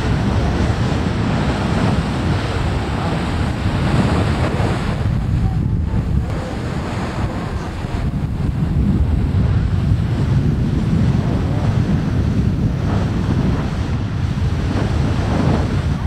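Beehive Geyser in full eruption: a steady rushing roar of its water column jetting from the cone, with wind buffeting the microphone.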